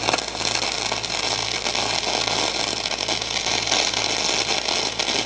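Shielded metal arc (stick) welding with a 7024 drag rod run electrode-negative (DCEN) at 145 amps: a steady, dense crackling sizzle from the arc as the rod is dragged along the joint.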